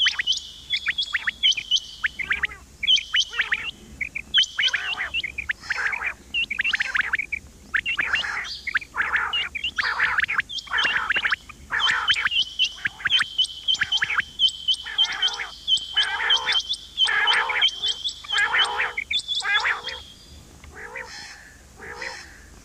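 Female quail calling: short chirping calls repeated in quick succession over a steady high tone. The calling thins out and grows quieter near the end.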